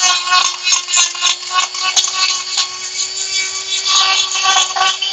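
Electric die grinder with a Kutzall carving burr running at a steady high speed, its whine rising and falling as the burr is worked in short passes into the wood.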